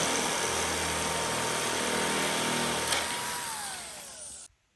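Electric metal shear running and cutting a metal roof panel: a steady whine over loud cutting noise. A little past three seconds in, the motor winds down with a falling whine and the sound fades away.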